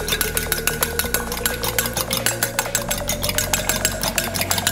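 A fork beating an egg in a ceramic bowl, its tines clicking quickly and evenly against the side of the bowl, about seven clicks a second.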